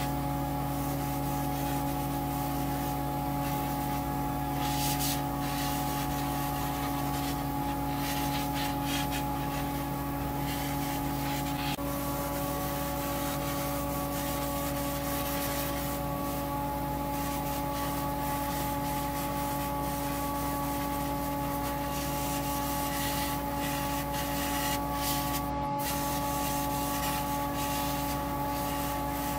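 Hobby spray-booth extraction fan running with a steady hum, while a spray gun hisses on and off over it as paint is sprayed.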